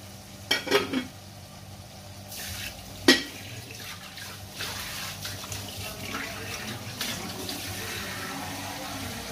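A kitchen tap runs steadily from about four and a half seconds in, likely drawing a little water to add to the pan. Before it come a few knocks of a wooden spatula against a wok and one sharp clack about three seconds in, the loudest sound.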